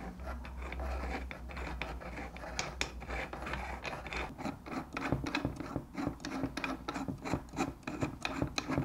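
Fingers turning the knurled rotating nut of an antenna RCU (remote control unit) by hand, screwing it onto the antenna's threaded port: a dense run of small scratchy rubs and clicks of skin on knurled metal and the threads turning. The nut is being hand-tightened to seal the rubber gasket against water.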